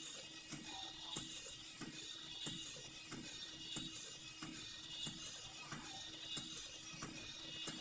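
WowWee Roboraptor robot dinosaur toy walking, its geared motor running with a regular click roughly every two-thirds of a second.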